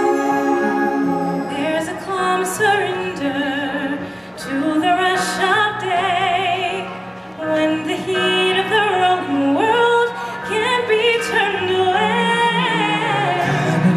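A woman sings a slow, soaring melody with vibrato into a microphone over held chords of accompanying music.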